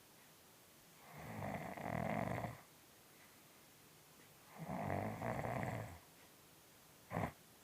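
A British Shorthair cat snoring loudly in its sleep: two long snoring breaths about three seconds apart, each lasting over a second, then one short snort near the end.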